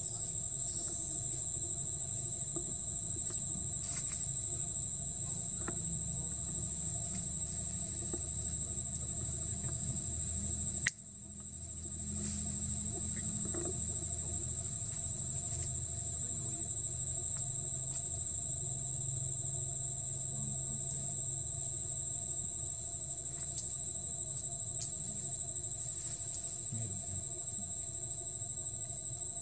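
Steady high-pitched drone of insects in the trees, over a low rumble. The whole sound drops out briefly about eleven seconds in and fades back.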